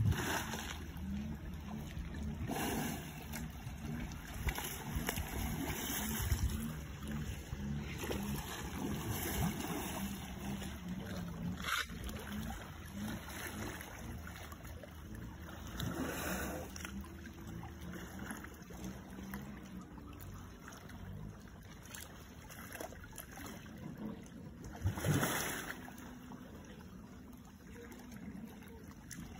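Muddy water sloshing and lapping as elephants roll and wallow in a shallow pond, with a few louder splashes.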